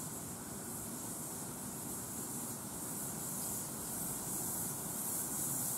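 Steady hiss of steam escaping from a 7¼-inch gauge miniature steam locomotive.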